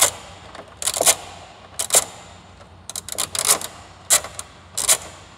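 Hand ratchet clicking in short back-and-forth strokes as it backs out a door check strap bolt, a few sharp clicks about once a second.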